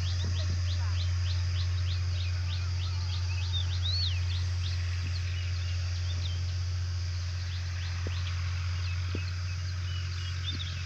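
Small birds chirping: many quick, high, short notes, a few times a second, with the odd swooping call, over a steady low hum.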